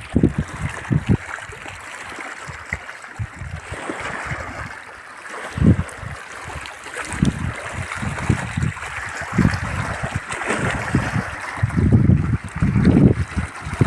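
River water flowing with a steady rush, with frequent short low bumps on the microphone.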